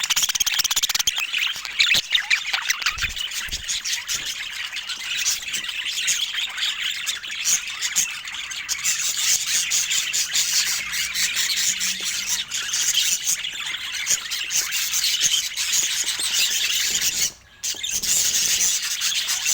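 Budgerigar chatter: a dense, continuous stream of rapid high chirps, warbles and squawks, with a brief half-second break near the end.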